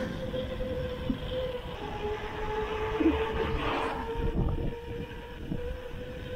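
Wind buffeting the microphone and tyre rumble on asphalt as a mountain bike rolls along, with a steady humming tone over the rumble.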